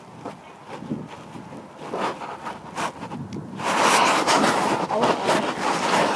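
Wind and handling noise on a handheld phone's microphone, with scattered rustles and clicks. It grows louder about halfway in as the phone is swung around.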